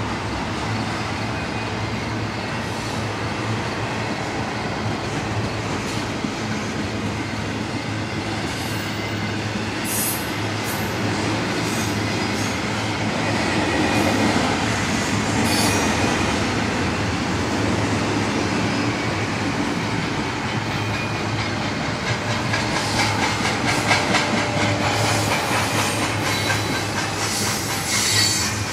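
Double-stack intermodal container train rolling past, with a steady rumble and clatter of wheels on the rails. High-pitched wheel squeals and squeaks come and go, most of them in the last few seconds.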